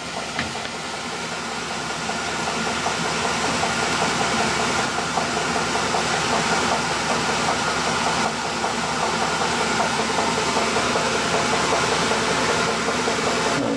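Colchester screw-cutting metal lathe running under power, its gears and leadscrew driving the carriage as the tool takes a thread-cutting pass, with the tool only just catching the work. A steady mechanical whirr and gear noise that grows louder over the first couple of seconds and then holds even.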